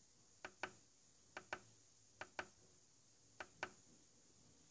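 Control-panel buttons of a Miele G6410SC dishwasher pressed four times, about a second apart, each press a light double click. The presses step through the wash programmes.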